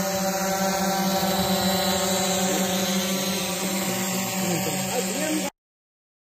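Camera drone (helicam) hovering, a steady hum of many even propeller tones that cuts off abruptly about five and a half seconds in.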